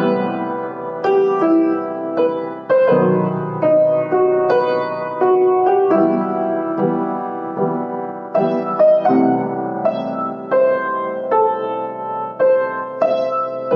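Solo piano playing a melody, notes struck singly or in small chords about once or twice a second, each ringing and fading.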